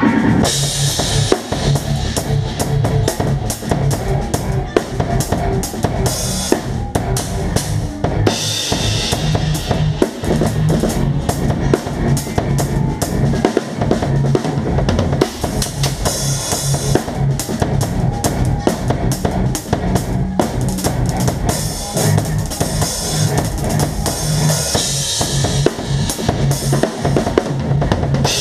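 Drum kit played live with a band: kick and snare drive a steady beat under repeated low notes, with several bursts of cymbal crashes.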